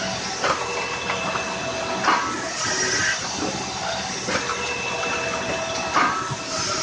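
Firewood processor at work: a steady mechanical hum with several held tones as a log is pushed into the splitting wedge, broken by a few sharp cracks as the wood gives way.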